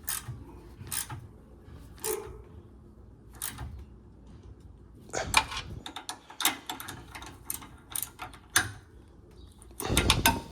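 Hand ratchet clicking in short, irregular runs of strokes, with a few metal tool clinks, as 14 mm nuts are tightened down.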